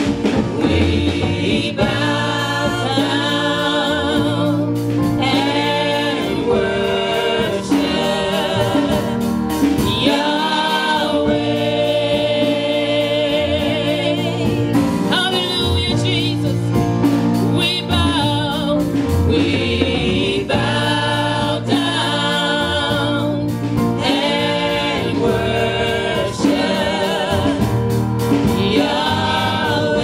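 Gospel music: singing with vibrato over instrumental accompaniment and a steady bass line.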